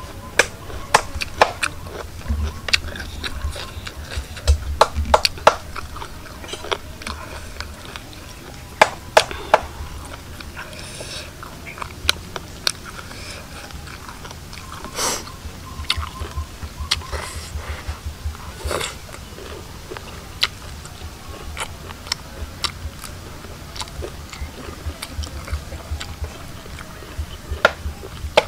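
Person biting and chewing cooked chicken offal close to the microphone: irregular crisp clicks and smacks, now dense, now sparse.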